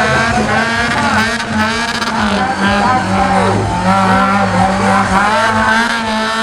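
Off-road 4x4 competition vehicle engines running and revving, with a steady low drone underneath and voices over the top.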